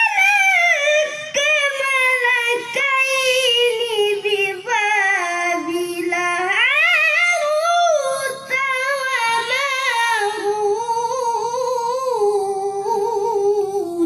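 A boy reciting the Qur'an in melodic tilawah style, his high child's voice drawing out one long ornamented phrase full of quick wavering turns. The pitch slowly falls, climbs again about halfway, then settles lower before the phrase ends near the end.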